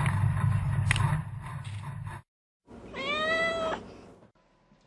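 A low rumbling noise with a couple of clicks cuts off abruptly about two seconds in. Then a Persian kitten gives one clear meow, about a second long, rising and then falling in pitch.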